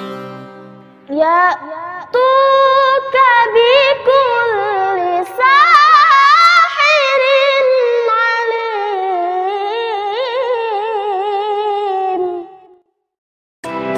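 A single high voice singing one long, unaccompanied, ornamented melodic line with a wavering pitch; it begins about a second in and breaks off near the end, leaving a brief silence.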